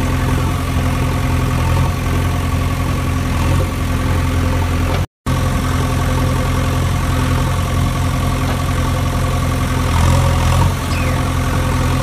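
Engine idling steadily with a constant low hum. It cuts out for a split second about five seconds in.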